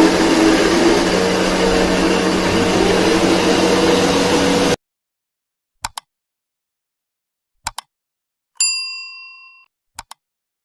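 A homemade CNC machine running steadily with its motor, cutting off abruptly about five seconds in. After that comes dead silence, broken by a pair of quick clicks twice, a bright bell-like ding that rings for about a second, and one more pair of clicks near the end. The clicks and ding are typical of a subscribe-and-bell outro sound effect.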